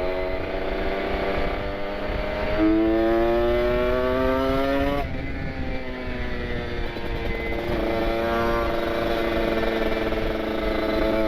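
Kawasaki Ninja RR 150 two-stroke single with an R9 carbon aftermarket exhaust, ridden at low speed: the engine note climbs gradually for a couple of seconds, falls suddenly about five seconds in, then runs fairly steady.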